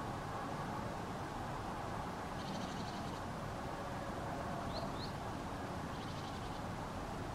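Small birds calling over a steady low rumble: two short, rapid rattling calls, with a pair of quick rising chirps between them.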